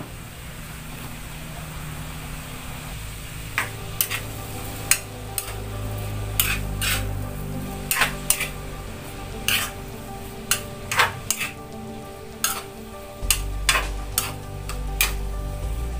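Metal spatula stirring and scraping in a wok of frying vegetables, clanking against the pan. The clanks begin a few seconds in and come irregularly, about one or two a second, over a low sizzle.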